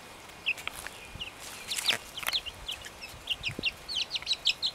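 Young chicks peeping: many short, high chirps, a few at first and then a busier, overlapping stream from about two seconds in, with a brief rustle around the same point.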